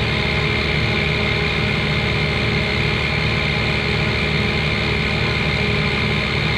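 Heavy diesel engine running steadily: a low, even drone with a steady high whine above it.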